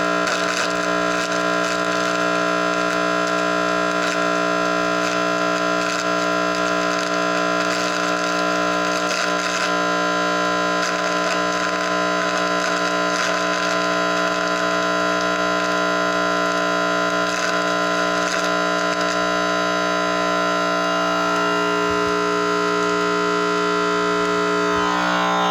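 Electronic static from a microwave receiver's speaker: a steady hiss carrying several steady hum-like tones, with scattered crackles and a shift in the tones near the end.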